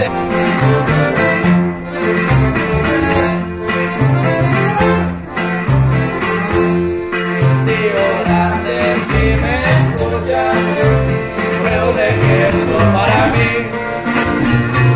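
Norteño corrido instrumental passage: accordion over a plucked tololoche (upright bass) line and guitar, with no singing.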